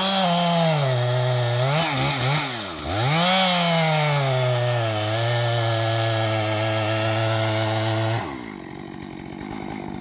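Two-stroke gas chainsaw cutting into the base of a standing redwood trunk. It revs up, dips and picks up again a couple of times, then holds a steady, lower note under load in the cut before dropping back about eight seconds in.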